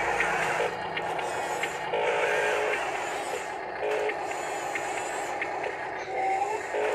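Electric drive motors and gearbox of a radio-controlled Huina wheel loader whining in short spurts as the model drives and turns, starting and stopping every second or two.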